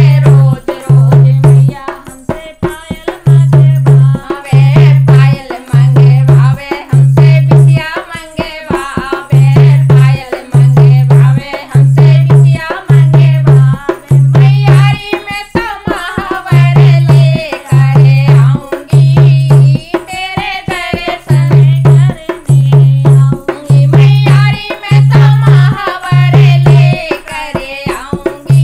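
Women singing a Hindi devotional bhajan to Mata Rani, accompanied by a hand-played dholak whose deep bass strokes keep a steady folk rhythm, with hand clapping along.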